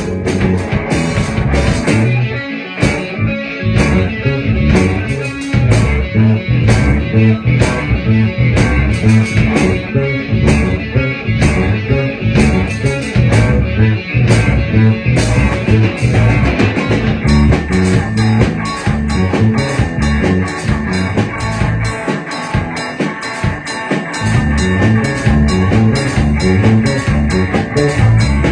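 A rock band playing: guitar over bass and a drum kit, with steady drum strokes that grow busier a little past the halfway point.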